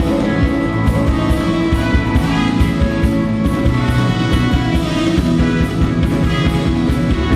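Live jazz-fusion band playing: drum kit with regular cymbal strokes keeping a steady beat under bass, guitar and sustained keyboard and horn chords.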